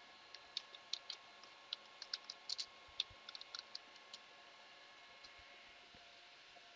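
Faint clicks of a computer keyboard as a command is typed: a quick irregular run of keystrokes that stops about four seconds in.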